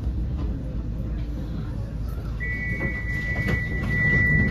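Tram door warning beeper: a steady high beep sounding a little over halfway in and still going at the end, over the low rumble of the tram interior.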